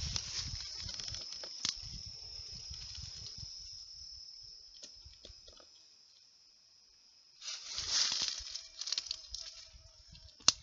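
Insects chirping in a steady high drone, with low bumps under it, fading out about halfway through. A few seconds later comes a burst of leaves and branches rustling close by, and a single sharp click near the end.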